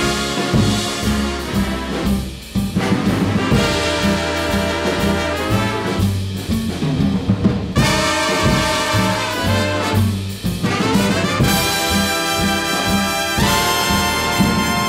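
Big-band jazz playing as background music, with the brass section to the fore over a walking low end.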